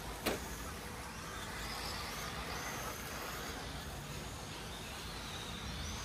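Electric 1/10-scale RC rally cars running around a dirt track: a faint high motor whine that rises and falls over a steady outdoor background, with one sharp click just after the start.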